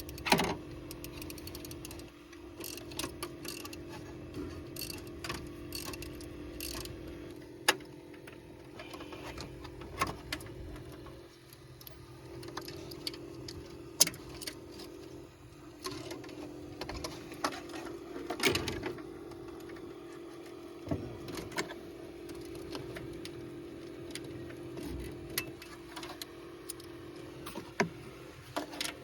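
Hand tools on metal during a water pump replacement: irregular clicks, clinks and knocks from wrenches and parts, over a steady low hum.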